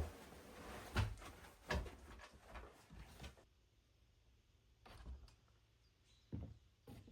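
A series of sharp knocks and clunks in a small room, spaced irregularly, the loudest about a second in. Under them a faint steady hiss stops about three and a half seconds in.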